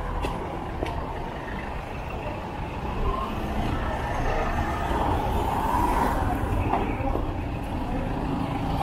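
Street traffic close by: engines of a passing van, a motorized tricycle and a jeepney running at low speed, making a steady mixed noise with no single loud event.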